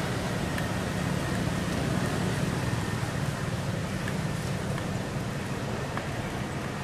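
Steady outdoor background noise with a low rumble, like distant road traffic, and a faint high steady tone.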